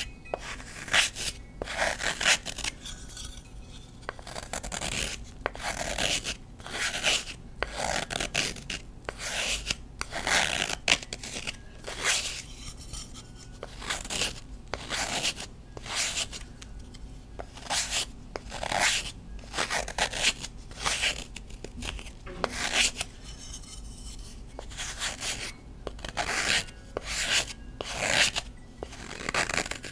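Knife blade shaving a block of Colift gym chalk: repeated scraping strokes, about one or two a second with uneven pauses, as thin chalk flakes peel off the block.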